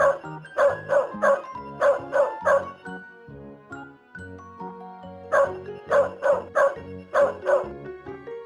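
Adult dog barking in two quick runs of about seven barks each, with a pause of a few seconds between them, over light background music.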